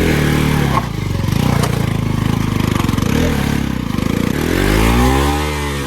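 Motorcycle engine revved hard under load on a muddy climb, its pitch rising and falling, with one long rev that swells up and drops back near the end.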